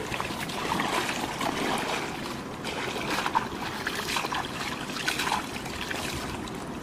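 Hands splashing and sloshing in shallow muddy water, scooping and groping about in irregular small splashes.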